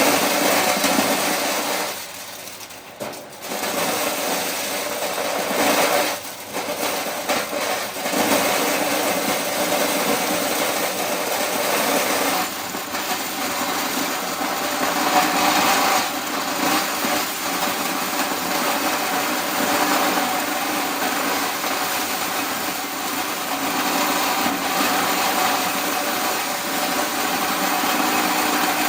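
Small motor-driven machine running steadily with a mechanical hum, which drops briefly about two seconds in and again about six seconds in.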